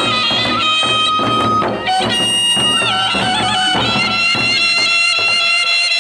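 Suling, a bamboo flute, playing a melody of long held notes with quick wavering ornaments, over a steady beat of percussion strokes: gendang beleq music.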